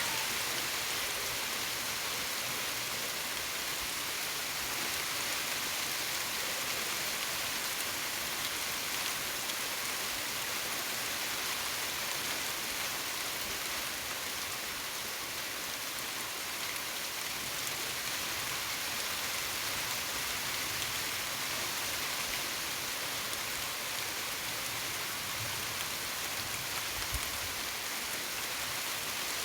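Steady light rain falling on surfaces: an even, unbroken hiss of drops.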